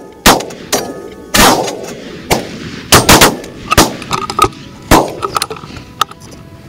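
A volley of shotgun blasts from several hunters firing at once, about ten shots in the first five seconds, some only a fraction of a second apart, each with a short echo.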